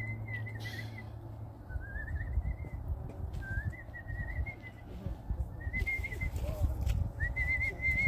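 Whistling in short warbling phrases at about one pitch, five or so in turn, over a low rumbling noise that grows stronger in the second half.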